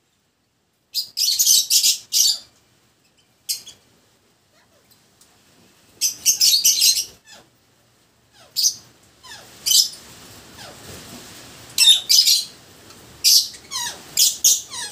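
Peach-faced lovebirds chirping in short bursts of shrill, rapid chirps with pauses between. The bursts come more often in the second half, mixed with a few lower falling notes.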